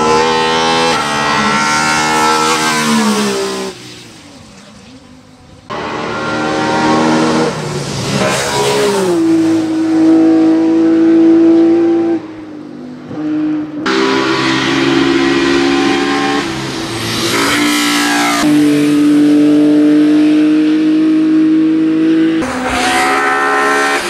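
Ford Escort RS 2000 Mk2 hillclimb race car driven flat out, its engine note climbing and dropping with each gear and corner and held high and steady in two long stretches. The sound changes abruptly between passes, with a much quieter stretch about four seconds in.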